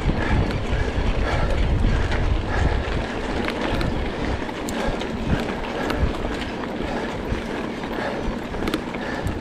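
Wind buffeting the microphone of a mountain bike being ridden, with tyres rolling over dirt and the bike rattling in many short clicks; the wind rumble is heaviest in the first three seconds.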